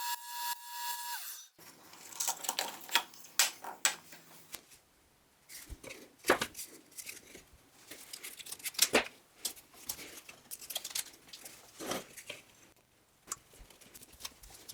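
A power tool running with a pulsing tone, cutting off suddenly about a second and a half in. Then irregular clicks, taps and knocks of hand work with tools and parts.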